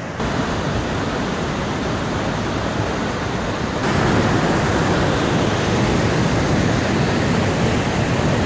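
Waterfall and river in flood after days of heavy rain: a steady, loud rush of falling water, which grows louder suddenly about four seconds in.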